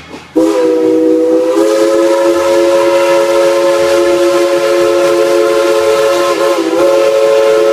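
Steam locomotive whistle blowing one long, loud blast: a chord of several notes held steady, starting about half a second in, with a brief waver near the end.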